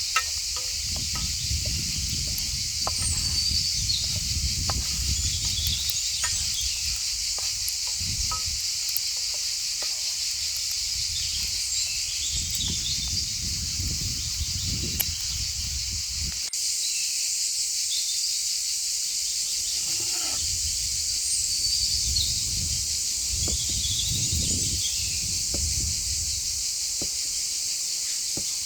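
Outdoor forest ambience: a steady chorus of insects with occasional bird chirps, slow low swells underneath and scattered small clicks.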